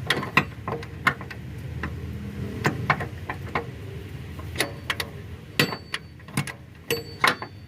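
Hand tools working on metal: irregular sharp clicks, knocks and clinks, two of them near the end ringing briefly like struck steel.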